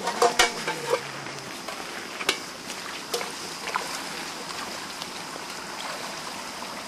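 Sloshing and splashing as feet and buckets move through shallow muddy water, over a steady hiss of running water. A burst of sharp splashes comes in the first second, and a few single ones follow about two, three and four seconds in.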